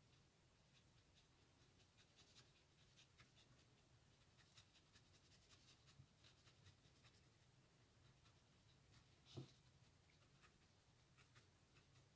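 Near silence, with faint scattered light scratches and ticks from a pointed wooden stick picking at a stencil on a wooden board, and one soft bump about three-quarters of the way through.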